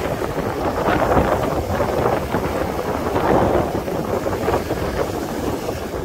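Wind buffeting the microphone, a gusty rushing noise, over the wash of surf on the beach.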